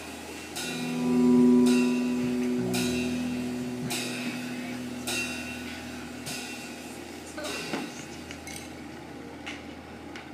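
The song's last held chord swelling and then slowly fading out, with light sharp taps about once a second.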